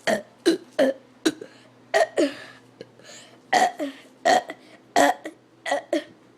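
A man burping over and over: about a dozen short burps in quick succession, some in close pairs, roughly two a second. He puts the burping down to having drunk a lot of water.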